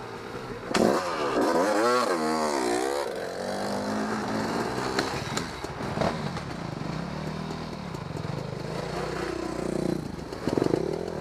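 Dirt bike engine revved in quick up-and-down throttle blips about a second in, then running steadily at low revs, with the revs climbing again near the end. A few sharp knocks are heard.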